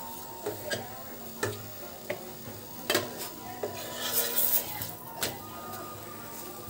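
Wooden spatula knocking and scraping on a nonstick pan as a chapati is pressed and turned while it cooks, with a string of irregular sharp taps and a short hissy scrape a little after halfway.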